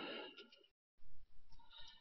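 Faint breath exhaled into a close microphone, cut off briefly by dead silence, then a short, faint voiced sound from the same person.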